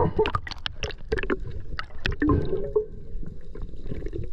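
Underwater sound of a speared fish being handled on the spear line: a quick series of clicks and knocks over gurgling water, with a faint steady hum coming in about halfway through.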